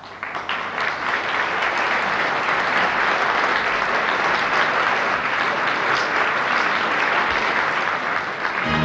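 Audience applauding, swelling up within the first second and holding steady. Near the end a big band with brass strikes up.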